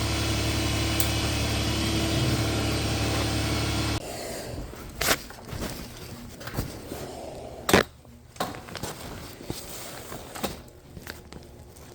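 Steady workshop machine hum that cuts off abruptly about four seconds in. Then scattered knocks and clatter of things being handled, with several sharp clicks.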